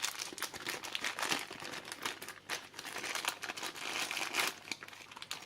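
Plastic packaging crinkling and rustling as it is handled, a dense run of irregular crackles that thins out near the end.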